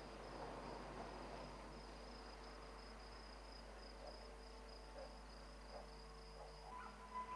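Faint night ambience of crickets chirping steadily, with a faint steady hum underneath.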